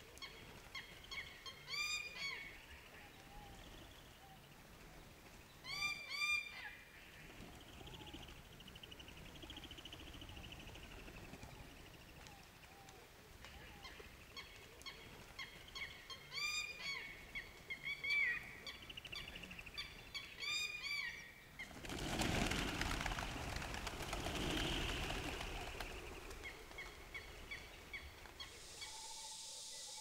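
A flock of pigeons and doves, with birds giving series of short, arching, nasal calls in several bursts. About two-thirds of the way through there is a loud rush of flapping wings lasting a few seconds. Near the end a steady high insect hiss sets in.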